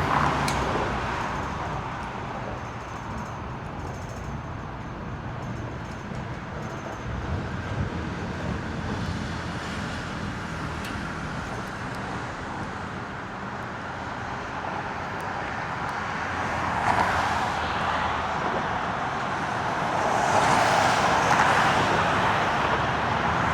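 Road traffic: a steady rumble of passing vehicles, swelling louder as one goes by about 17 seconds in and again for the last few seconds.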